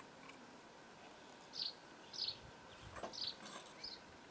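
Faint bird chirps: short, high notes that drop in pitch, repeated at irregular intervals from about a second and a half in.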